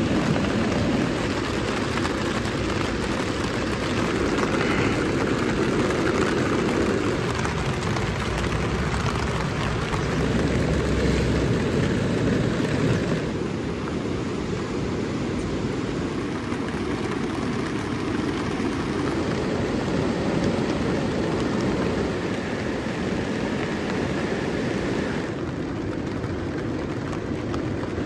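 A steady, loud rushing noise with no clear tone or rhythm, its character shifting slightly about 13 and 25 seconds in.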